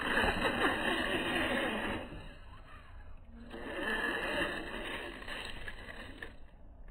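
Slowed-down, deep rasping drone of a 1/16 scale RC rock bouncer's motor and drivetrain as it crawls over tree roots. It drops off for about a second and a half about two seconds in, comes back, and fades again near the end.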